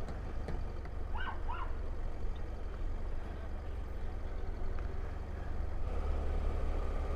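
Motorcycle engine running at low speed, a steady low rumble that picks up slightly near the end. Two short rising chirps come about a second and a half in.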